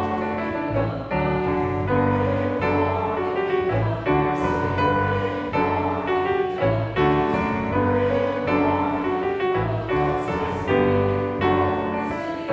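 Piano playing a hymn tune, with chords changing on a steady beat.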